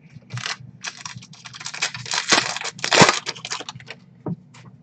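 A foil trading-card pack wrapper being torn open and crinkled by gloved hands: a dense run of crackling and crinkling, with the loudest snaps about two and three seconds in.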